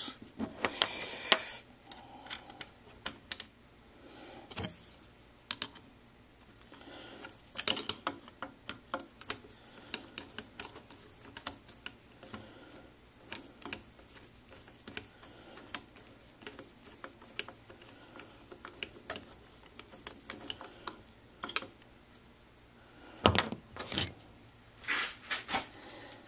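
Scattered light metallic clicks and taps as the half-nut parts of an Atlas 618 lathe's apron are handled and fastened with a screwdriver, with a few louder knocks near the end.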